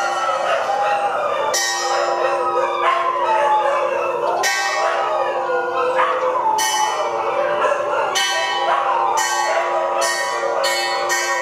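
Background music with bell-like chimed notes struck every second or two over a sustained held tone, with a gliding melodic line.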